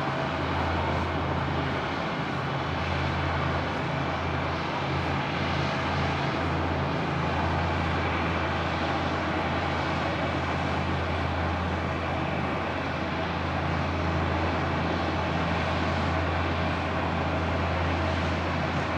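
A steady low engine drone, unbroken throughout, with a constant rushing noise over it.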